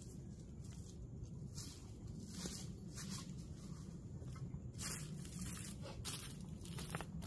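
Faint, irregular footsteps rustling through dry leaf litter, over a steady low rumble.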